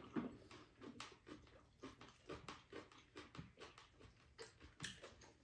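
Faint eating sounds of two people: chewing and slurping, with irregular small clicks of spoons against bowls.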